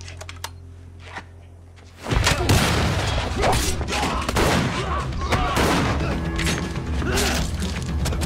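A low, tense drone with a few faint clicks, then about two seconds in a loud burst of revolver gunfire and crashing blows breaks out over action music.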